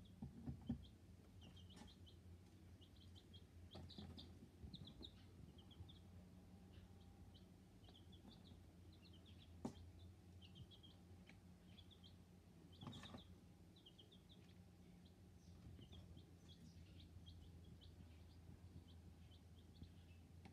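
Young domestic chicks peeping softly: many short, high cheeps scattered throughout, over a low steady hum. There are a few brief taps, the loudest near the start.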